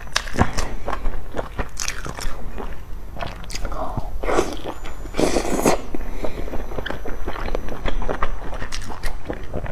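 Close-miked biting and chewing of large stuffed buns: a run of wet mouth clicks and smacks, with two longer, louder bites about four and five seconds in.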